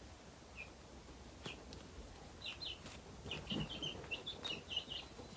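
Baby chicks peeping: short, high cheeps, a few at first, then many in quick succession from about halfway in.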